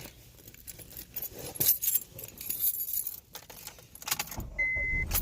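Keys jangling and clicking at the ignition of a 2006 Honda Civic, then the four-cylinder engine starts near the end and settles into a low, steady idle, with a dashboard chime beeping. A quick, easy cold start, the block heater having been plugged in.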